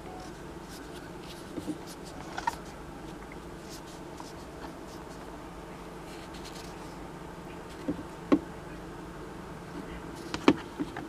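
Fingers handling and flexing a rubber toothed timing belt: faint rubbing with a few short clicks and taps, the sharpest about eight and ten seconds in, over a steady low hum.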